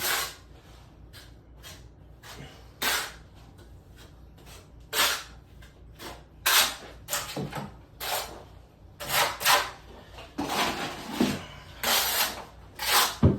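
A trowel scooping and dabbing rapid-setting thinset mortar onto wooden wall studs: a dozen or so short, irregular scrapes and knocks with pauses between them.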